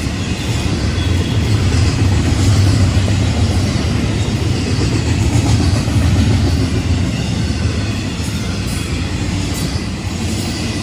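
Freight train rolling past at speed: a steady rumble of wheels on rail with faint clicking, loudest a few seconds in and easing off toward the end.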